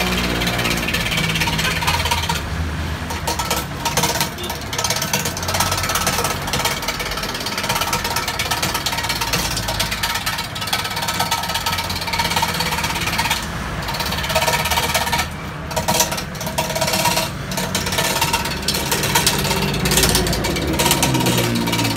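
Large wood lathe turning a big wooden blank for a 40 cm stair newel post, a hand chisel cutting into the spinning wood: a continuous rattling noise full of rapid, irregular knocks.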